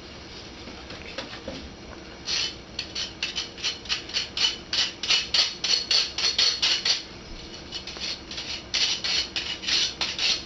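Quick rasping, scraping strokes, about four a second, in two runs with a short pause between them.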